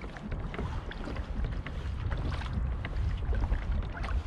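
Wind buffeting the microphone in a steady low rumble, with small water splashes lapping against a plastic fishing kayak's hull.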